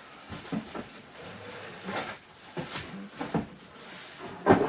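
Cardboard and plastic packaging rustling, with irregular knocks of plastic vacuum parts being handled. The loudest knock comes near the end.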